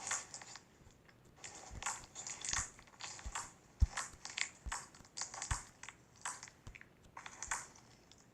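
Slime being squeezed and poked by hand, making irregular crackling and popping.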